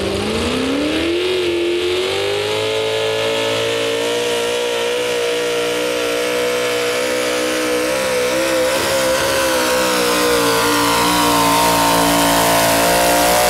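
V-8 engine of a modified pulling tractor revving up at the launch, then running at high, steady revs under full load as it drags a weight-transfer sled, the pitch creeping slightly higher near the end.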